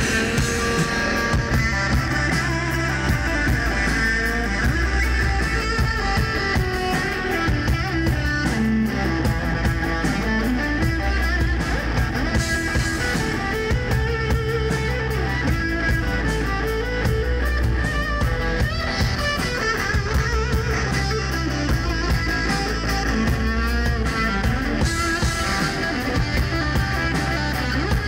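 Live rock band: an SG-style electric guitar plays a repeating riff over a drum kit in a loud instrumental stretch with no singing.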